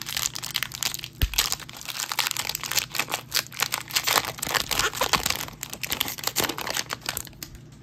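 Foil wrapper of a Topps Chrome trading card pack crinkling and tearing as it is ripped open by hand, with one soft knock about a second in; the crinkling dies away near the end.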